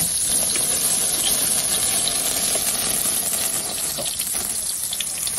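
Hot oil sizzling steadily in a wok.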